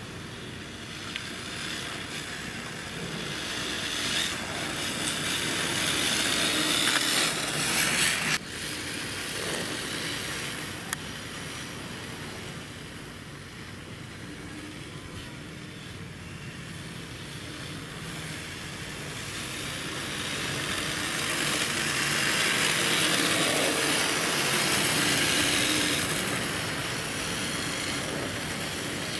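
Electric RC drift car (D-Like RE-R Hybrid chassis) running and sliding on asphalt, a hiss of tyres scrubbing across the pavement. It swells twice as the car passes close, and breaks off abruptly about eight seconds in.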